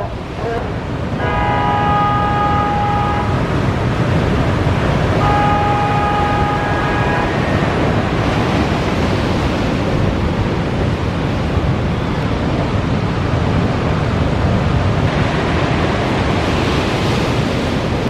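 Ocean surf breaking in a steady, loud rush, with wind on the microphone. Twice in the first seven seconds a steady pitched horn sounds for about two seconds each time.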